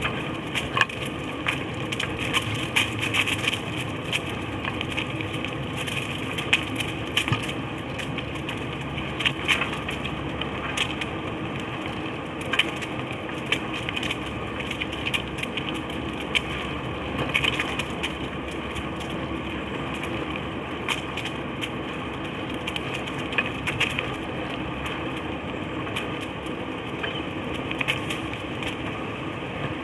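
Cruiser bicycle tyres rolling over a dirt trail covered in dry fallen leaves and grit: a steady crunching with frequent sharp crackles and clicks.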